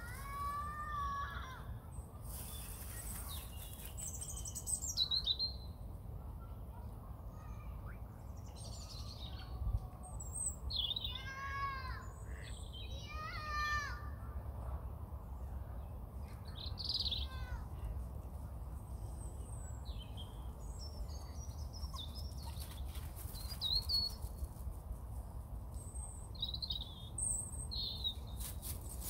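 Lake birds calling: a scatter of short chirps and whistles, with a louder run of repeated falling calls about halfway through, over a steady low background rumble.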